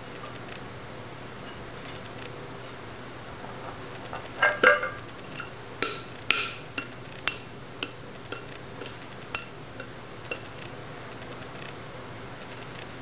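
Small metal saucepan clanking as a baby bangs it down and strikes its upturned base like a drum: a cluster of loud ringing clanks about four seconds in, then about ten separate knocks, roughly two a second, dying out after about ten seconds.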